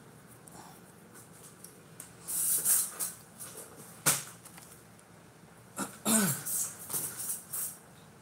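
Handling noise: rustling bursts and a sharp knock as a stainless steel tumbler is turned and set down on paper on a craft table, with a short falling voice-like sound about six seconds in.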